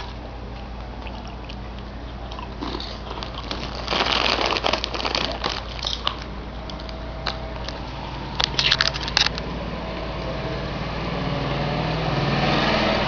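A cat crunching crispy cheese flakes: bursts of crackly chewing clicks, the sharpest and loudest around eight to nine seconds in. A vehicle swells past near the end.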